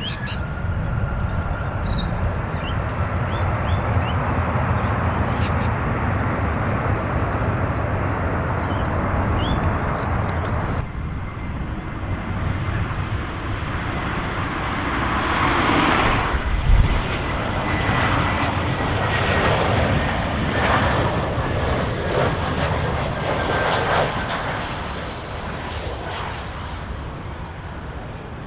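Airbus A320-200 jet airliner landing, its engines sounding steadily at first with birds chirping over them. About 16 to 17 seconds in the noise peaks with a low thump, then comes in louder surges with a slowly falling whine that fades near the end.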